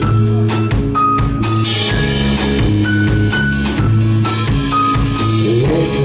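Live rock band playing an instrumental passage: a steady drum-kit beat, a bass line and a melody of long held notes.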